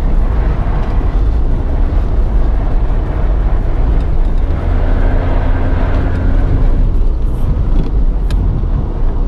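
BMW 318 driven hard on ice, heard from inside the cabin: the engine pulls under load over a loud steady rumble from the spiked winter tyres, and its note fades about seven seconds in as the car slows.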